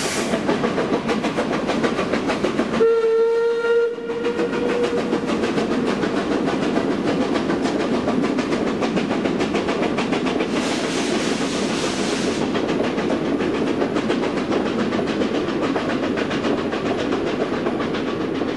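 Steam whistle of Škoda-built 2-10-0 locomotive 556.036 gives one blast of about a second, about three seconds in. Throughout, the train's wheels clatter steadily over the rail joints, with a burst of hiss about ten seconds in.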